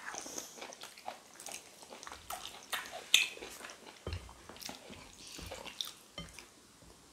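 Close eating sounds: wet chewing and lip-smacking as soft egusi soup and mashed potato are eaten by hand, with scattered light clicks and a soft thump about four seconds in.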